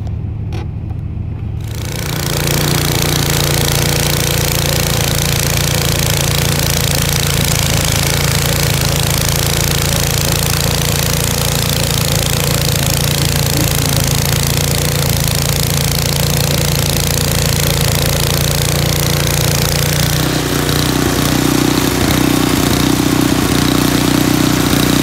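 Gas snow blower's single-cylinder engine running steadily, starting about two seconds in. About twenty seconds in, its note shifts higher.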